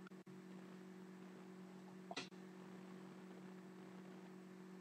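Near silence with a steady low hum, broken once about two seconds in by a brief rustle of trading cards being handled.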